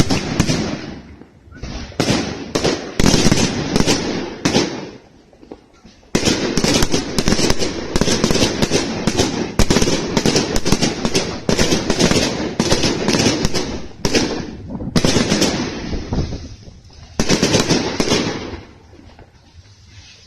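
Fireworks going off in rapid volleys of bangs and crackles, in several bursts. The densest run lasts from about six to fourteen seconds in, and the sound dies away near the end.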